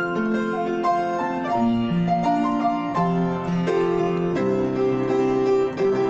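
Piano playing a worship-song accompaniment, a melody over sustained chords, with a slow, steady stream of notes.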